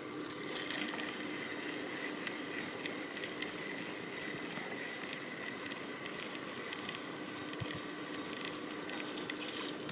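Steady rush of flowing river water around an anchored inflatable boat, with a few faint steady high tones and occasional small ticks.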